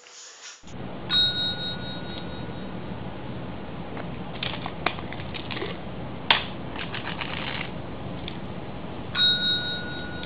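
A tabby cat pressing a service bell with its paw: two bright dings about eight seconds apart, each ringing out for about a second. Light clicks and rustling come in between.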